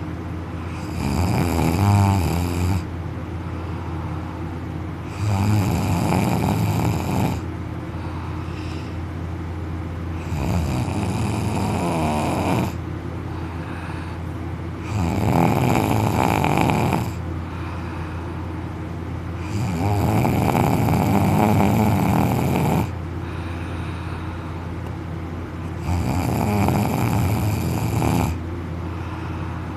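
A man snoring loudly on his back with his mouth open: six rough, rattling inhaled snores, each about two seconds long, coming every four to five seconds over a steady low hum.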